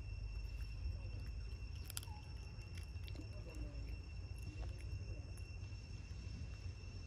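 Steady high-pitched insect drone holding two constant tones, over a low outdoor rumble, with a single sharp click about two seconds in.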